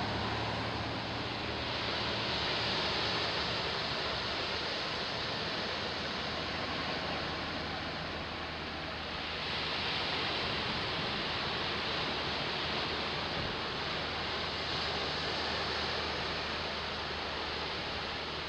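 Ocean surf: a steady rush of breaking waves that swells about two seconds in and again about nine seconds in.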